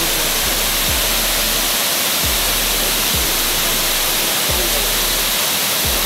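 Steady rushing of a waterfall, with background music carrying a low, thudding beat roughly once a second.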